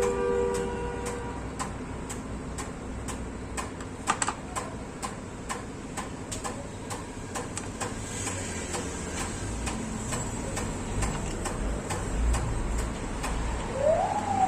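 Steady, even ticking, a few ticks a second, like a clock. A short clatter comes about four seconds in, and a brief tone rises and then falls near the end.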